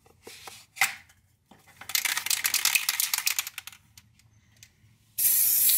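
Plastic cap snapped off an aerosol spray paint can, then the can shaken hard, its mixing ball rattling rapidly for about two seconds. Near the end a steady spray hiss starts.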